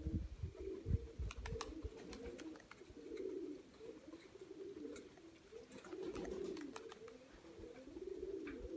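Domestic Nikolaev pigeons cooing, several low rolling coos overlapping one after another, with a few faint clicks.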